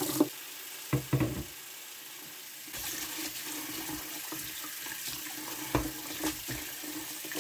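Tap water running into a plastic bowl of wild fennel in a sink, with splashing as a hand swishes the fennel in the water, briefly louder about a second in and again near the end.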